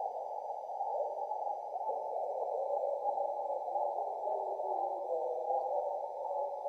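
Garbled ham radio reception played backwards with reverb through a Vox amplifier: a continuous thin, narrow-band warble with no clear words.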